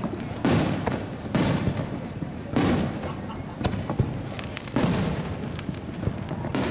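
Aerial fireworks shells bursting in quick succession, a boom every second or so, each trailing off over a moment, with a few sharper cracks between them.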